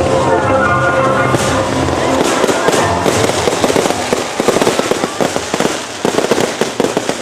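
Fireworks crackling and popping in rapid, dense succession, thickest from about three seconds in, with music playing underneath.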